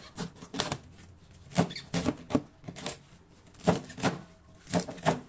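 Chinese cleaver cutting napa cabbage into chunks on a bamboo cutting board: about ten sharp knocks of the blade through the crisp stalks onto the board, at uneven spacing and some in quick pairs.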